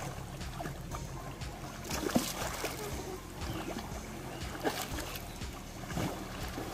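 Shallow sea water splashing and sloshing as people wade and swim through it, with sharper splashes about two seconds in, near the middle and again near the end.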